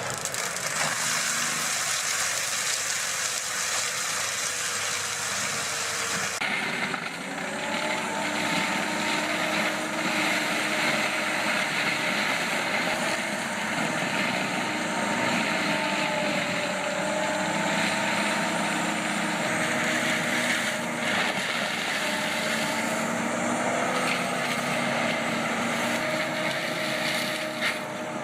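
Heavy machinery engine running steadily. The sound changes abruptly about six seconds in to an engine note whose pitch wavers slightly up and down.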